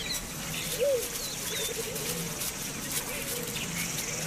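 Spotted hyenas calling near a carcass: a few rising-and-falling calls and runs of quick repeated notes, with small birds chirping high above.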